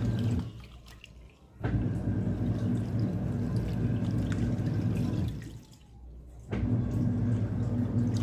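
Washing machine on its wash cycle with a big blanket inside: a steady motor hum under sloshing water. It stops twice for about a second, as the drum pauses before turning the other way.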